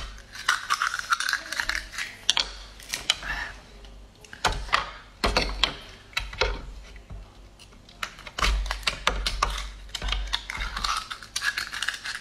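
Raw oysters being shucked with an oyster knife: the blade working into the hinge makes an irregular run of sharp clicks, cracks and scrapes of shell.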